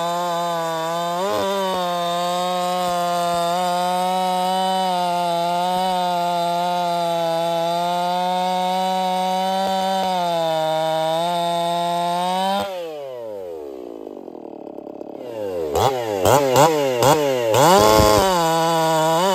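Echo chainsaw with a .325-pitch chain cutting through a log at full throttle, its engine note steady under load. About twelve seconds in the cut finishes and the engine falls to idle, is revved up and down a few times, then settles back under load as a new cut begins near the end.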